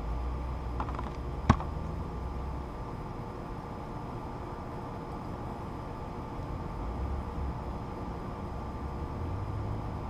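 Small clicks from hands handling wire leads, one sharp click about one and a half seconds in, over a steady low rumble.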